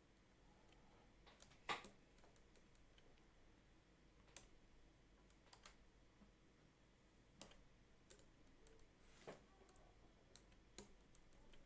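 Faint, isolated clicks of a computer mouse and keyboard, about seven spread over the stretch, the loudest a couple of seconds in, over near-silent room tone.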